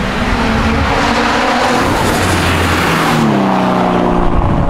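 The FPV F6 ute's built, turbocharged Barra straight-six runs hard at high revs over loud tyre noise from wheelspin. About three seconds in, the tyre noise eases and the engine's pitch falls as the revs drop.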